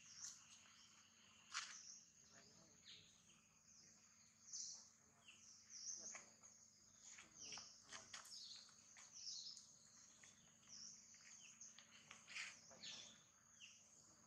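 Faint outdoor ambience: a steady high insect drone with many short, scattered bird chirps over it.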